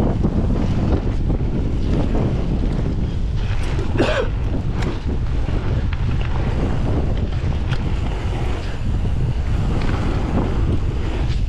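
Wind buffeting the microphone over the rumble and rattle of mountain bike tyres rolling fast on a gravel trail, with scattered clicks from the bike. A brief, louder sound with a bending pitch comes about four seconds in.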